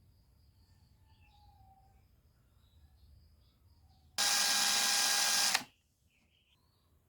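A small electric motor whirs loudly for about a second and a half, switching on and off abruptly, with a steady hum in it. Faint bird chirps come before it.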